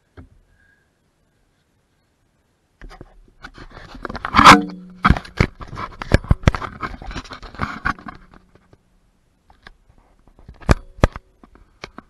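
Close handling noise: a dense run of knocks, rubs and scrapes starting about three seconds in, loudest around four and a half seconds, then a couple of sharp knocks near the end.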